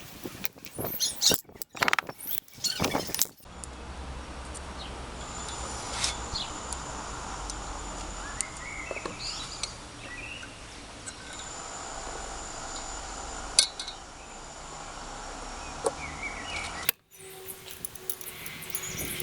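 Workshop sounds of engine work: scattered metal clinks and taps of tools and engine parts being handled, over a low steady hum. The background changes abruptly twice, early on and near the end.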